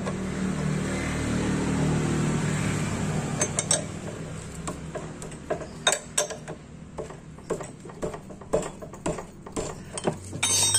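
Metal wrench clinking and clicking on the scooter's front axle nut as it is tightened, in a string of short, irregular clicks and knocks. A steady low hum runs under the first few seconds, then fades.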